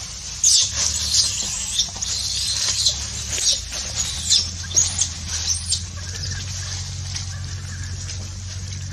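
Dry leaf litter crackling and rustling in a quick irregular series of crisp crackles as a macaque walks and forages over it, over a steady low rumble.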